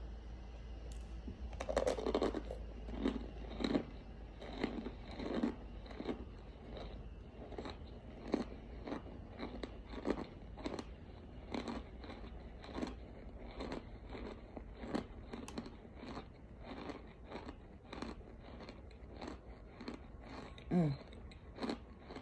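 Cornstarch chunks crunching between the teeth, chewed in a steady rhythm of about two crunches a second. A brief falling sound comes near the end.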